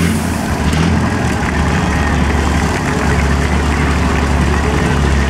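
A heavy vehicle engine idling steadily, with a low, even drone.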